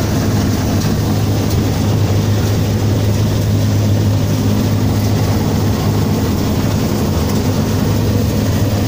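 Rice combine harvester running steadily while it cuts paddy: a constant low engine hum under a steady mechanical noise, heard from the operator's seat.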